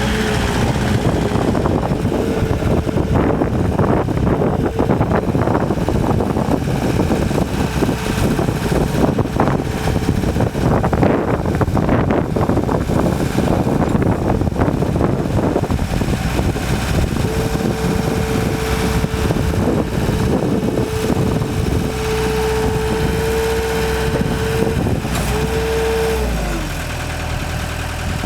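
Gehl 5635 DXT skid steer's Deutz turbo diesel engine running, with a steady whine over its rumble. Near the end the whine and the engine note drop in pitch as the engine slows down.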